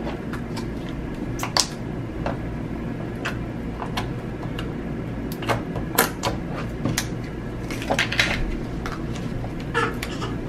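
Slime being squished and poked with fingers in a small plastic cup, giving irregular sharp clicks and pops, several clustered around the middle and near the end. A steady low hum runs underneath.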